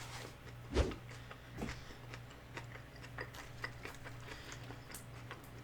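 Close-up chewing of a chicken flauta: many small, scattered mouth clicks and crunches, with one louder mouth sound just under a second in.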